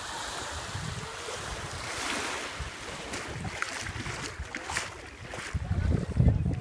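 Small waves lapping on a sandy shore, with wind buffeting the microphone in gusts, strongest near the end.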